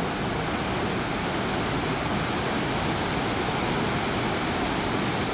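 Steady roar of rushing water from Blackwater Falls, running high with floodwater, an even unbroken rush.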